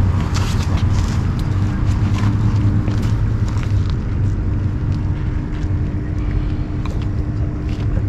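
A motor running steadily: a low rumble with a constant hum, and a few faint clicks in the first seconds.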